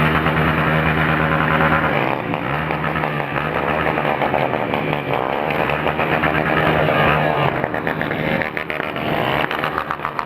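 Honda Titan single-cylinder motorcycle engine on an open straight pipe with no muffler. It holds a steady idle for about two seconds, then its engine speed rises and falls again and again as it is revved or ridden.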